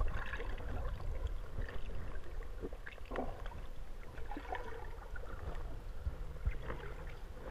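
Muffled underwater sound picked up by a submerged camera: a steady low rumble of moving water with scattered small clicks and pops.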